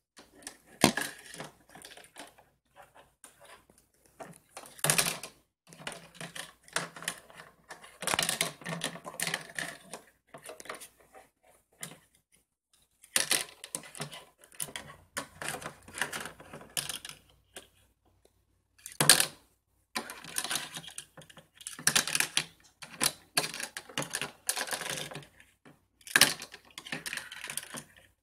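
Small plastic toy pans, a toy egg and utensils clicking and clattering against a plastic play kitchen as a child handles them. The clatter comes in irregular runs with short pauses.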